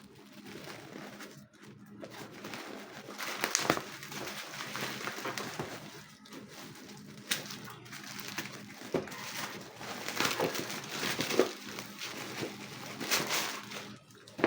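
Packaging being handled during an unboxing: irregular rustling and crinkling of plastic and cardboard, with scattered clicks and a few louder knocks.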